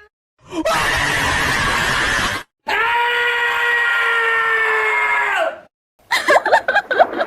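Cartoon character vocal sound effects played one after another, each starting and stopping abruptly: a harsh, hissy scream for about two seconds, then a long steady scream held for about three seconds that drops slightly as it ends, then a quick wobbling cry near the end.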